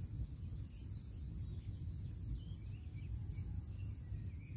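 Insects chirping in a steady, evenly pulsing high chorus, with a few faint bird chirps and a low rumble underneath.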